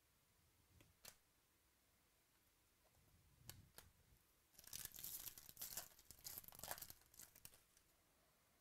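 A foil trading-card pack wrapper being torn open and crinkled for about three seconds, after a few light ticks of cards being handled.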